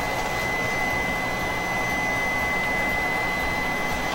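KINGROON 3D printer's stepper motors whining in one steady high tone as the print head travels to the right rear corner for bed leveling, over the printer's steady fan noise. The whine stops at the end as the head reaches position.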